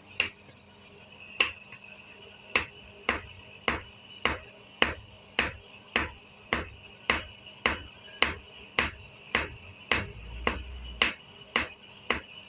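Blacksmith's hammer striking metal on an anvil in a steady rhythm of about two blows a second. Each blow rings briefly.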